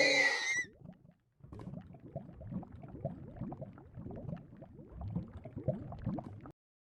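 Human stomach growling: faint, irregular gurgles and rumbles for about five seconds. The tail of a louder sound cuts off within the first second.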